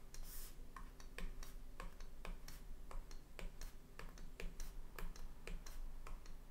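Stylus tip tapping and scratching on a drawing tablet as short arrows are drawn one after another: a quick, irregular series of light clicks, about three a second.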